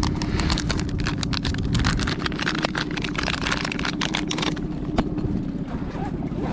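A boat's engine running steadily, with a dense run of rapid clicks over it that stops about four and a half seconds in.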